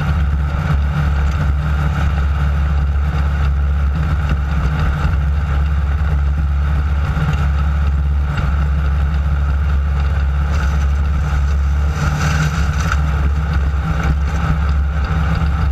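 Class 9 desert race buggy running steadily at speed over dirt, its air-cooled VW engine droning evenly, with rough road and chassis noise. About twelve seconds in there is a short burst of harsher noise.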